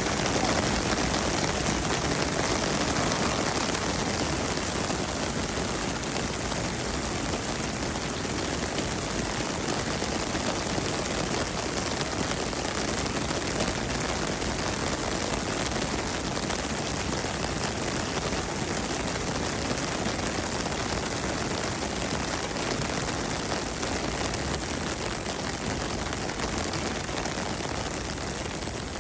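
Steady rain falling, an even hiss of many drops that eases slightly near the end.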